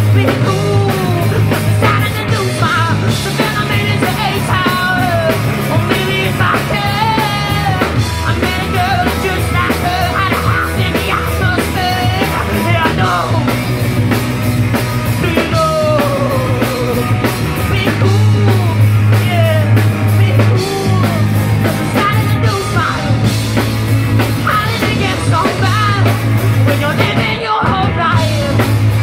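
Live rock band playing loud and steady: drum kit, a heavy low bass line and a melodic lead line bending up and down over the top.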